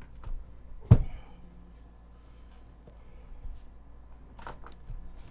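A single sharp knock about a second in, followed by a few faint clicks, over a low steady hum.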